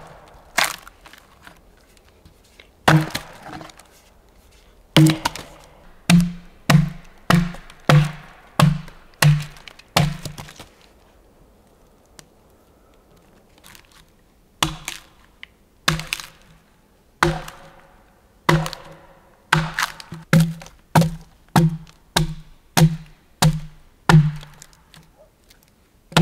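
Axe blows hewing into a log: sharp chopping strikes in quick runs of about one and a half a second, each with a short low ring, with a few single blows between the runs.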